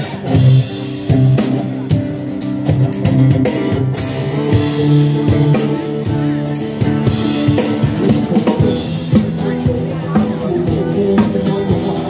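Live band playing through a street PA: a drum kit with snare and bass-drum hits under electric guitars and bass.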